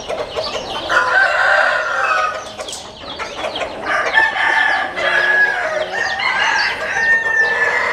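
A flock of chickens with several roosters crowing over one another and hens clucking, the calls overlapping almost without a break.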